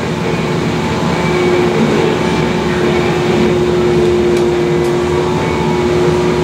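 Ship crane's hoist machinery running with a steady hum, heard from inside the operator's cab as the container spreader is lowered. A steady tone comes in about a second and a half in and holds.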